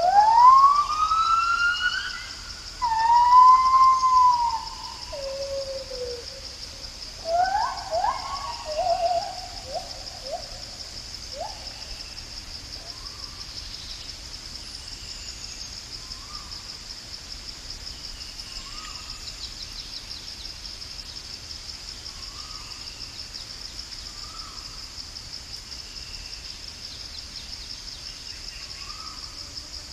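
Gibbon song: loud, pure whooping notes that glide up and arch over, ending about ten seconds in with a run of quicker rising notes, over a steady high insect drone. After that, only the drone remains, with a faint short call repeating every two to three seconds.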